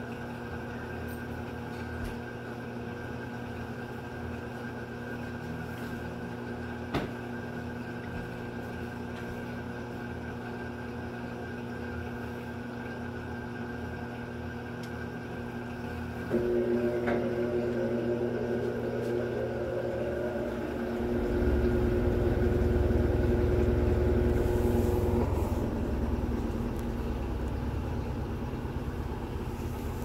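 Electrolux top-loading washing machine spinning a pair of sneakers: a steady low hum, then about halfway through a motor starts with a sudden louder hum and the drum spins up into a low rumble.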